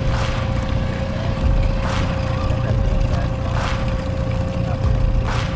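Boat motor running steadily at slow trolling speed: a low rumble with a constant hum over it. A short rushing swish comes about every two seconds.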